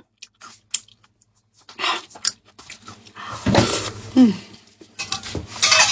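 Close-miked eating: wet chewing, smacking and slurping on a spicy sheep's head, in short irregular bursts. About three and a half seconds in comes a brief voiced grunt or hum from the eater.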